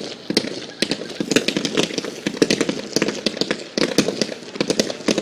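Fireworks going off: a rapid, irregular stream of sharp cracks and pops, several a second.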